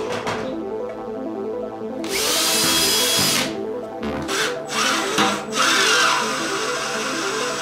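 Cordless drill boring into a wooden trim board, running in one sustained whine of a bit over a second, then several shorter bursts while driving a screw. Background music with a steady repeating pattern plays underneath.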